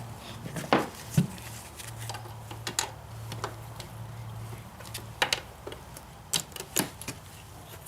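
Open-end wrench clicking and tapping against the chain-adjuster nuts of a small bike as it is worked onto them, in scattered sharp metal clicks over a steady low hum.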